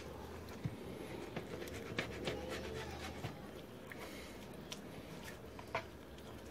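Fillet knife working under the skin of a striped bass fillet on a plastic cutting board: faint scattered ticks and light scraping over a steady low hum.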